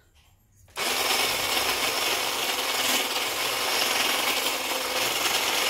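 Electric food chopper with a whisk attachment switched on about a second in, its motor running steadily with a constant hum as it whips eggs and sugar for a cake batter.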